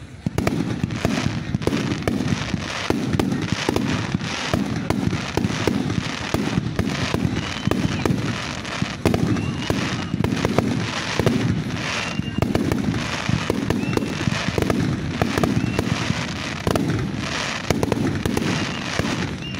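Fireworks display: aerial shells bursting one after another in quick succession, a near-continuous run of bangs.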